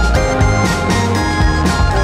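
Upbeat background music with a steady beat and held synth-like tones.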